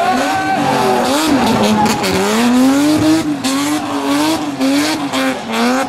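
BMW 3 Series (E36) rally car engine revving hard and dropping again and again as the car drives past, its pitch climbing and falling with the throttle and gear changes, with short sharp crackles in the second half.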